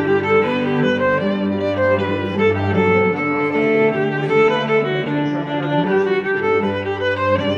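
Background music of bowed strings, violin over cello, playing in long held notes.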